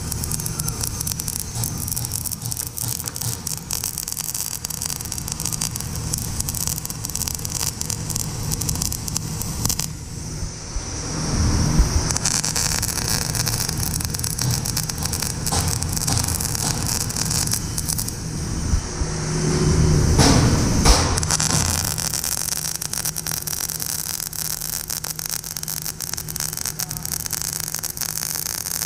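MIG welding arc on steel crackling and sizzling steadily as the wire feeds, a dense fast crackle. It breaks off briefly about a third of the way in, and there are two louder stretches with a low rumble, about two-fifths and two-thirds of the way in.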